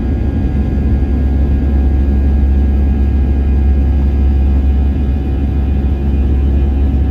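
Steady low rumble of aircraft engine and air noise, with faint steady whining tones above it and no change in pitch or level.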